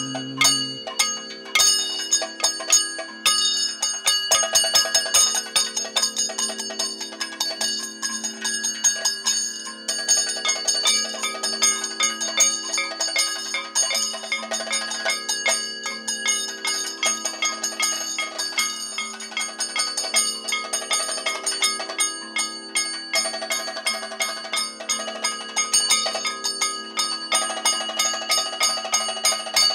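Kathakali percussion ensemble playing fast, steady rhythmic strokes between sung verses: chenda and maddalam drums with ringing metal cymbals and gong, the metallic ringing standing out.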